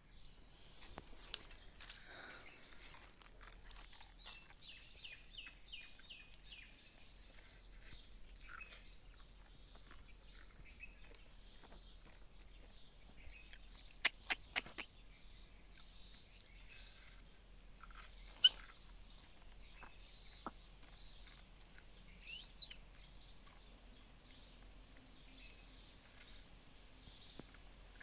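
Faint parrot chirps and calls with scattered sharp clicks. A quick run of about eight chirps comes a few seconds in, four sharp clicks around the middle, and one sweeping call later on.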